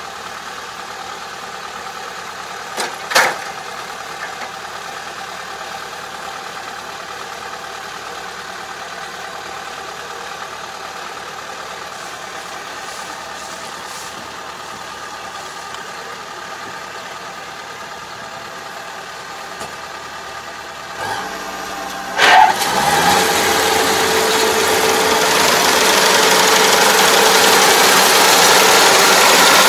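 ANR460 combine harvester's engine running low and steady, then about two-thirds of the way in a loud clunk and the engine rises in speed, running steadily louder.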